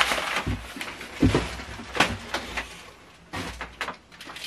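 Packaging being handled and unwrapped: rustling paper and cardboard with several sharp crinkles and knocks.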